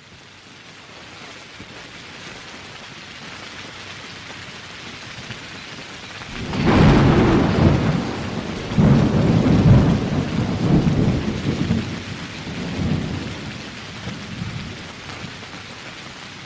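Steady rain that fades in, then a thunderclap about six and a half seconds in, the loudest sound, followed by rolling thunder rumbles that die away.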